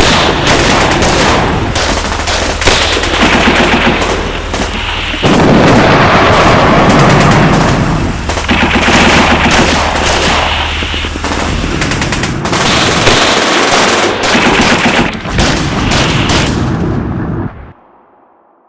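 Battle sound effects of dense machine-gun and rifle fire, swelling and easing in waves. The fire cuts off sharply near the end, leaving a short fading echo.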